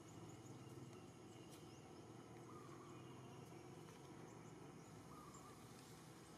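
Near silence: faint outdoor ambience, a low steady hum with scattered faint high chirps.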